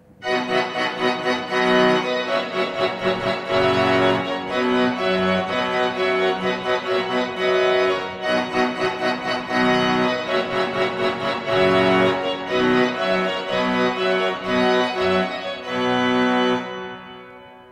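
Organ music: a full-voiced passage of many quick notes that starts suddenly just after the opening and dies away near the end.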